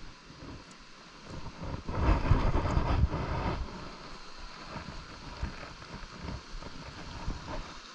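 Wind buffeting the camera microphone in irregular low rumbling gusts, with the strongest gust about two seconds in, lasting a second or so.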